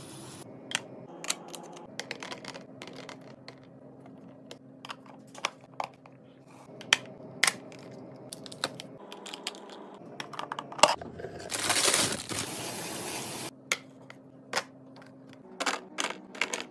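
Packaged snacks and drinks being handled and set down while a fridge is restocked: scattered clicks and taps, with a longer rustling of packaging lasting about two seconds past the middle.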